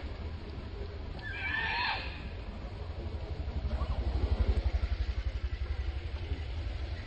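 Macaque giving a shrill screech, a little under a second long, about a second in, over a steady low rumble that pulses more strongly around the middle.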